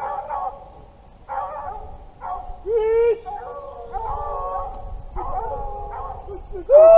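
Pack of boar-hunting hounds baying: repeated drawn-out bays from several dogs overlapping, with one strong bay about three seconds in and the loudest, long bay near the end.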